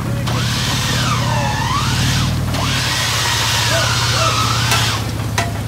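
Vehicle engine running steadily with a low, even pulse, and a higher whining tone above it that swoops down and back up in pitch.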